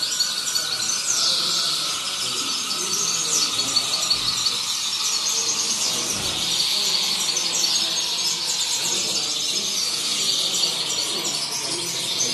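Caged European greenfinches singing: a steady stream of fast, high trills and twitters.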